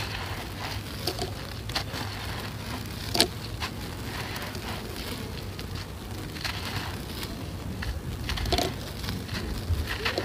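Dry sand-cement chunks crumbled and crushed by hand, a gritty crunching with loose grains pattering down onto a bed of sand. One sharper crack about three seconds in.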